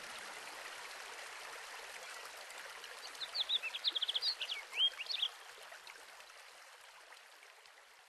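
Flowing stream water with a steady rushing sound, fading out toward the end. A bird sings a quick run of high chirps and sliding notes about three to five seconds in.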